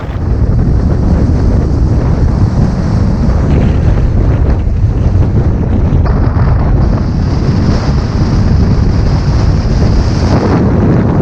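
Strong mountain wind buffeting the microphone: a loud, steady low rumble with a hiss over it.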